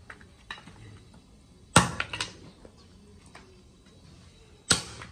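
Cleaver chopping horse ribs on a round chopping block. There are two heavy chops about three seconds apart; the first is followed quickly by two lighter strikes, with faint knocks in between.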